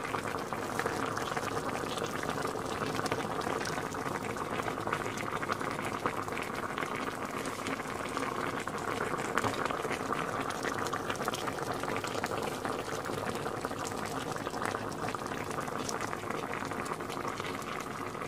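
A pot of paksiw na pompano, fish in rice wine vinegar and oil, simmering: a steady bubbling with many small pops.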